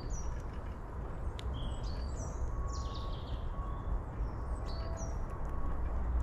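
Small birds giving short, high chirps every second or so, with a quick falling series of notes about two and a half seconds in, over a steady low outdoor rumble.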